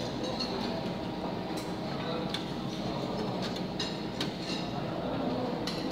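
Commercial conveyor toaster running with a steady hum and rattle, with several light clicks of metal tongs against its steel tray.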